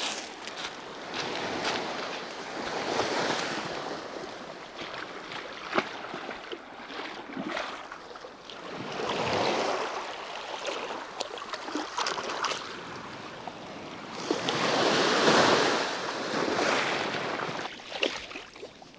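Sea waves washing onto the shore, the surf swelling and fading every few seconds, with a few sharp clicks between the swells.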